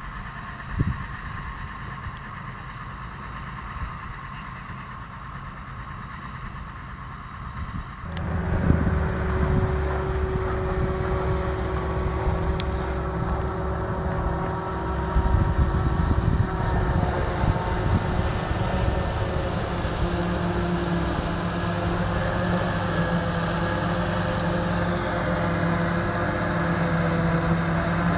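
Low, distant rumble of a tractor with a silage trailer. About eight seconds in it changes abruptly to the louder, steady drone of a forage harvester chopping maize, with a tractor and trailer running alongside. The drone grows slowly louder toward the end.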